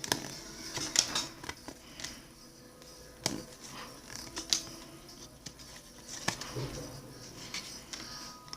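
Trading cards being handled and flipped through one by one, giving irregular soft clicks and short slides of card stock against card stock.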